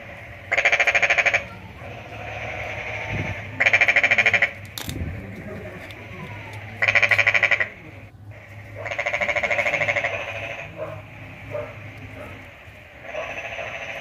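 Animal calls repeating every two to three seconds, each a short rattle of fast pulses under a second long, with louder and fainter calls alternating. A few light clicks of wires and clamps being handled come near the end.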